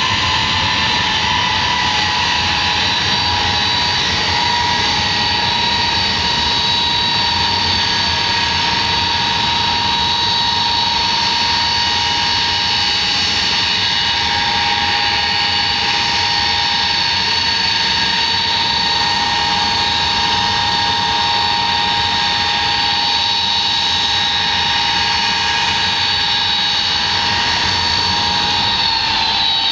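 An Ilyushin Il-76's four Soloviev D-30KP turbofans running at ground idle: a steady roar with high-pitched turbine whines on top. The whine dips a little in pitch at the start and again near the end.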